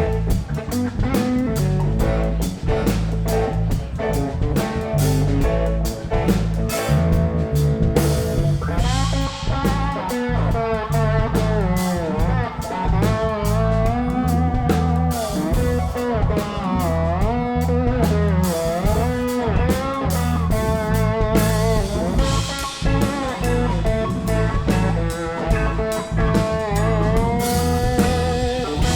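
Live country-rock band playing an instrumental section: drums and bass keep a steady beat, and from about nine seconds in a lead guitar plays a melody full of bends and vibrato.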